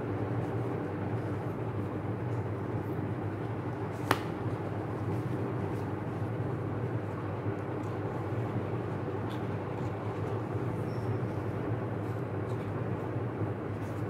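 Gloved hands handling a cardboard presentation box and its paper card: light rustles and taps, with one sharp click about four seconds in, over a steady low background rumble.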